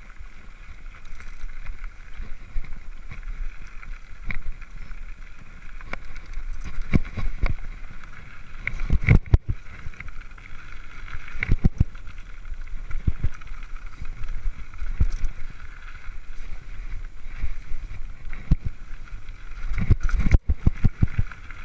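Mountain bike riding fast down a dirt singletrack: a steady rush of tyres on dirt with repeated thumps and rattles as the bike jolts over bumps. The hardest jolts come about nine seconds in, near twelve seconds, and around twenty seconds in.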